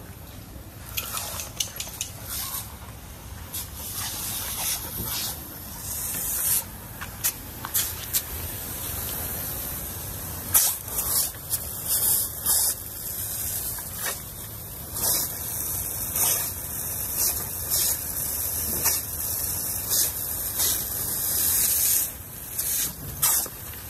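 A jet of water spraying with a steady high hiss, broken by many sudden splashing bursts as dogs bite and lap at the stream.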